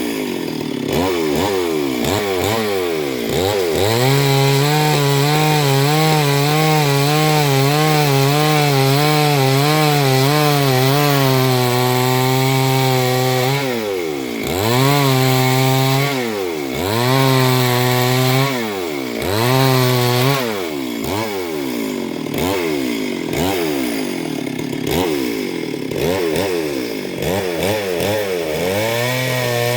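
Chainsaw cutting gamhar wood: the engine is held at high revs with its pitch wavering under load for several seconds, then drops back and revs up again four or five times in quick succession.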